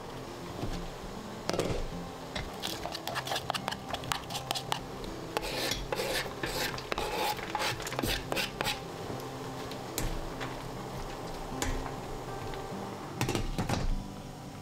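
Chopped vegetables clatter and patter into a stainless-steel steamer basket, with a wooden cutting board scraping and knocking on the pot's rim. Near the end comes a short burst of clinks as the steamer's glass lid with its metal handle is set back on. Soft background music plays underneath.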